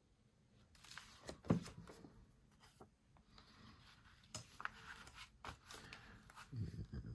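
Paper rustling and crinkling as a glued paper pocket is handled and pressed down onto a journal page by hand, with a couple of soft thumps, the loudest about a second and a half in and another near the end.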